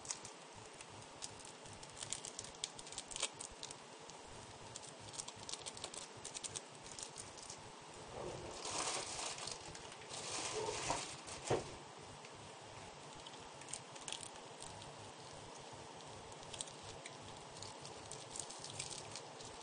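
Pot of water on a stove coming to a simmer: small bubbles ticking and popping in an irregular patter. There are two louder stretches of noise about halfway through.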